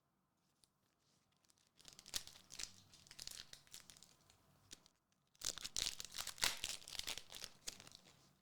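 Trading-card booster pack wrappers being torn open and crinkled, in two bursts of crackling: one starting about two seconds in, the other just after five seconds.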